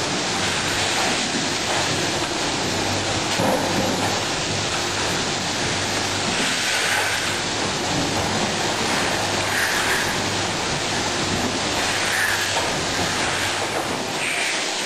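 Factory machinery running: a steady, even rushing noise with a faint low hum underneath.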